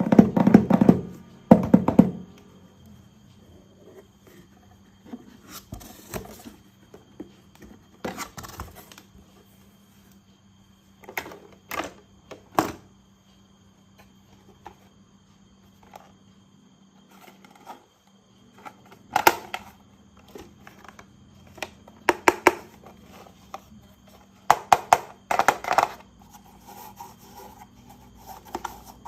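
Plastic toy train parts handled and knocked together: irregular bursts of clicks, clatter and rattling, the loudest right at the start, with quieter stretches between.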